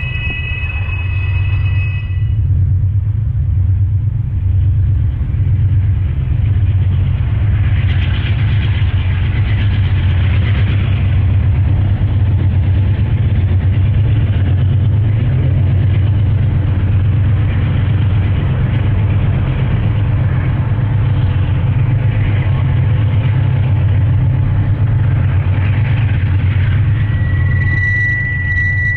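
Diesel freight locomotives working upgrade under load, a loud steady engine rumble with a low pulsing throb, followed by freight cars rolling past. A high steady squeal starts near the end.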